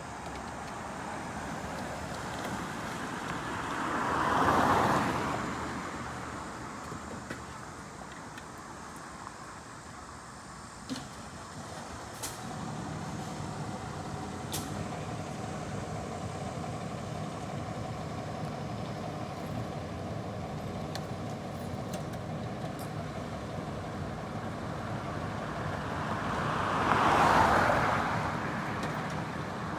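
Road traffic: a vehicle passes about four seconds in and another near the end, each swelling up and fading away. From about twelve seconds in, a large engine idles steadily underneath, with a few sharp clicks.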